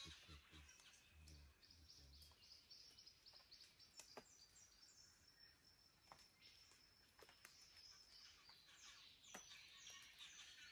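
Faint dawn chorus of Australian forest birds: many short high chirps and trills overlapping, with one bird giving a long run of rapid high notes through the middle.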